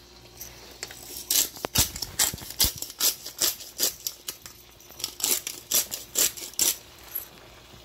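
Hand-held pepper mill grinding black peppercorns: a quick run of crunching clicks, about three a second. It starts about a second in and stops near the end.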